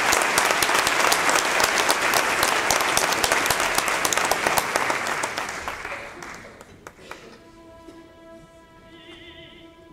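Theatre audience applauding, the clapping dying away over the first six or seven seconds. The opera orchestra then comes back in softly with held notes, a few of them wavering.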